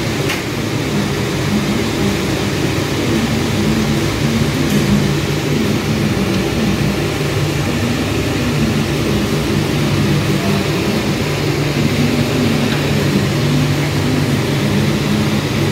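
A steady mechanical drone of a running machine, with a faint click shortly after the start.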